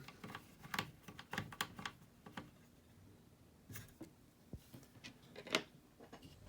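Small screwdriver driving a tiny M.2 screw down into the motherboard standoff: a run of light, irregular metal clicks and taps, with one sharper click about five and a half seconds in.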